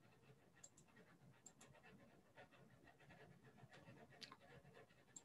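Near silence: faint room tone with a few faint, scattered clicks.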